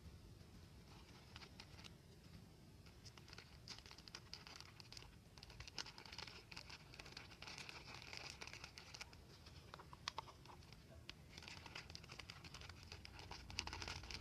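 Faint, irregular crinkling and crackling of thin clear plastic being handled and pressed down around a plastic cup, busier in the second half.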